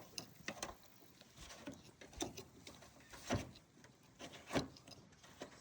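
Faint, scattered knocks and clicks of handling, about half a dozen short ones spread out with quiet in between.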